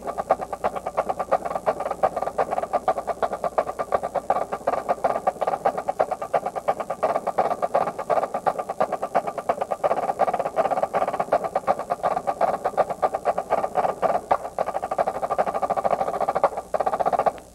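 Marching drumline playing a fast, dense passage of rapid drum strokes. It starts abruptly, breaks off briefly and then stops near the end.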